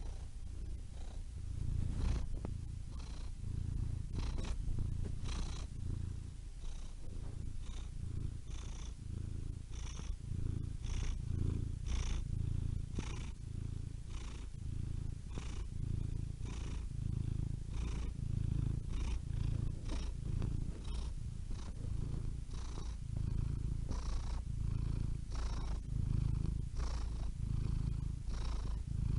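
Domestic cat purring: a steady low rumble that swells and eases in an even rhythm, about once a second.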